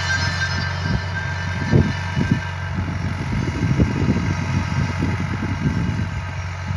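Al-Ghazi tractor's diesel engine running steadily under load as it pulls a five-tine cultivator through the soil, with irregular low thuds over the drone.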